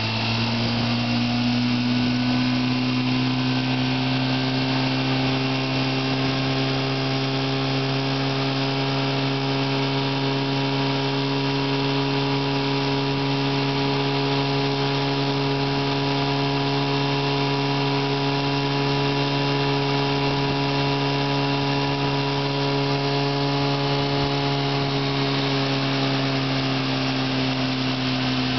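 1954 Johnson CD-11 5.5 hp two-cylinder two-stroke outboard motor running at a steady speed. The owner says it still has a slight ignition misfire, which he puts down to moisture in the points after sitting in the rain.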